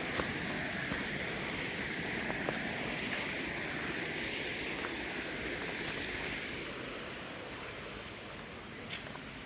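Steady rush of a flowing river or stream, easing a little after about seven seconds, with a few faint clicks.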